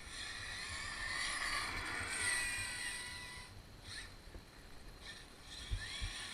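Traxxas X-Maxx 8S RC monster truck's electric motor whining as the truck speeds up, holds speed and then slows about three and a half seconds in, starting to rise again near the end. It is being driven at about half throttle.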